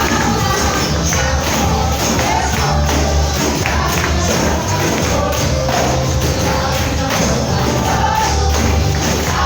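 Live Christian worship music from a church band, with a steady bass line and regular percussion.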